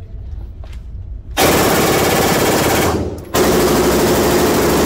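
Fully automatic gunfire: two long bursts, the first starting about a second and a half in and the second following after a brief pause, echoing in a concrete indoor firing lane.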